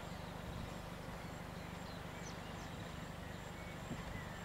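Steady outdoor background noise with a few faint, short bird chirps scattered through it.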